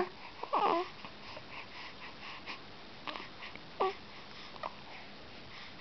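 Young baby cooing: one short vowel-like coo that falls in pitch about half a second in, then a few brief, softer coos around three and four seconds.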